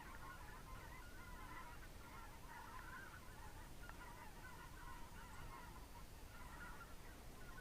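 A flock of geese honking faintly in the distance, a continuous chorus of overlapping calls.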